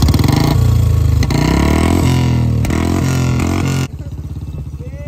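Royal Enfield Bullet's single-cylinder engine running loud as the bike is ridden, its pitch rising and falling with the throttle. About four seconds in it cuts off abruptly to a quieter engine sound.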